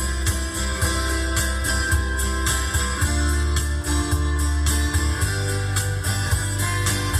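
Instrumental song intro: guitars strummed and picked over a bass line and a steady beat.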